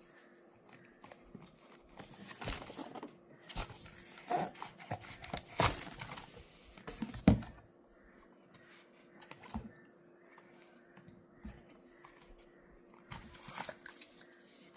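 Cardboard gift box and its packaging being handled and opened: irregular rustling and crinkling with a few sharp clicks and taps, busiest in the first half and loudest about seven seconds in.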